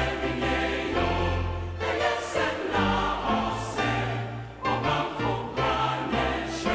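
Music with a choir singing over bass and a regular beat.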